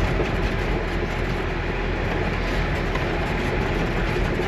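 Toyota LandCruiser 80 Series heard from inside the cabin while driving on soft sand: a steady mix of engine, drivetrain and tyre rumble.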